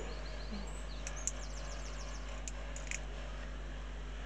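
Faint scraping and ticking of a small hand tool enlarging the holes in a small plastic model-kit part. A few short scratches come about a second in and again near three seconds, over a steady low hum.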